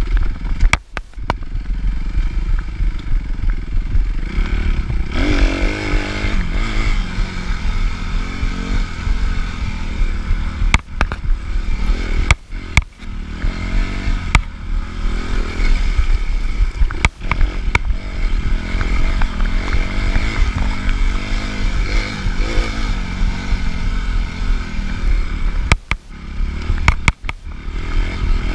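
Suzuki RM-Z 250 four-stroke single-cylinder motocross engine heard from the bike during a race lap, revving up and down continuously as the rider accelerates and backs off. Sharp knocks break in now and then over the engine note.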